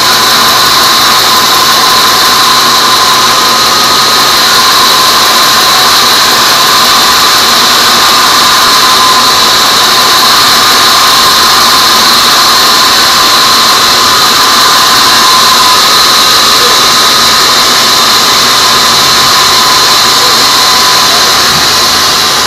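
Sawmill band saw ripping a squared teak beam lengthwise: a loud, steady cutting noise with a continuous high-pitched whine from the blade. It eases off slightly near the end.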